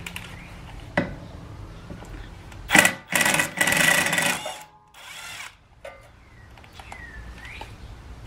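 Kobalt cordless driver with a T30 Torx bit running in a short burst and then a longer one of about a second and a half, backing out the brake rotor's Torx retaining screw. A brief quieter run follows.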